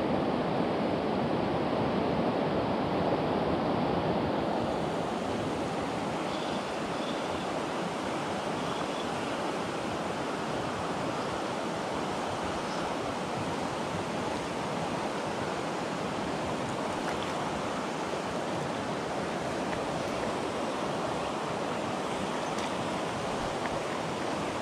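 Steady rush of a trout river's running water, an even unbroken noise with no changes.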